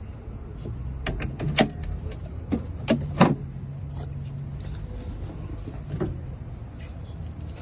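Motorised key-cutting machine running with a steady low hum for a few seconds while cutting a car door key, with a series of sharp metal clicks and taps, the loudest about three seconds in.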